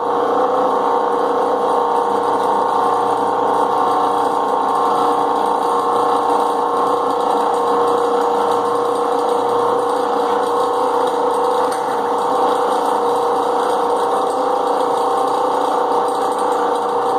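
Drill press running steadily with a hole saw cutting holes through a sheet-metal panel.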